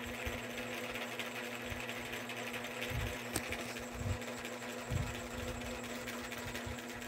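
A steady low mechanical hum with background hiss, holding one constant tone, broken by a few soft low thumps about three, four and five seconds in.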